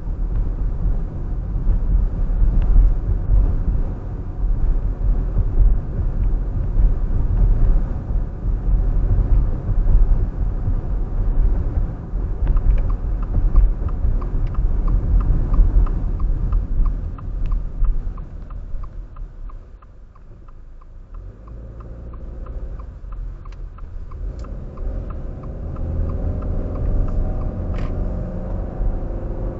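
Car driving, a steady low rumble of tyres and engine that drops as the car slows about two-thirds of the way through and picks up again near the end. For several seconds in the middle a turn signal ticks, about three ticks a second.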